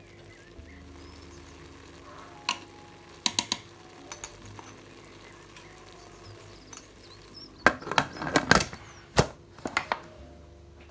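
Sharp clinks and knocks of dishes and utensils being handled: a few separate ones early on, then a quick cluster around eight to nine seconds in, over soft background music.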